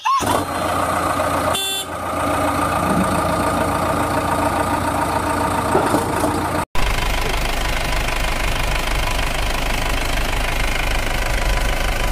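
Vehicle engine sound effect running steadily, laid over the toy play, with a short break a little under two seconds in. About halfway through it cuts off abruptly and a deeper engine sound takes over.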